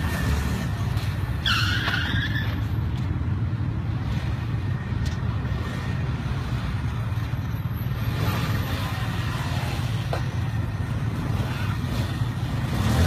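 Small motorbike engines running steadily, with a brief high squeal about a second and a half in.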